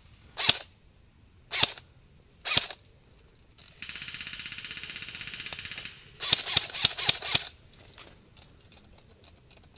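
Airsoft guns firing: three single shots about a second apart, then a full-auto burst of about two seconds at a very high rate of fire, then a quick string of about six shots. Fainter, more distant shots tick away near the end.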